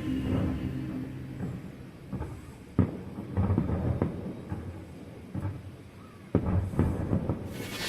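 Fireworks going off in a display: a string of irregular bangs and low rumbling booms, two of them louder. A loud hiss rises near the end. Music fades out at the start.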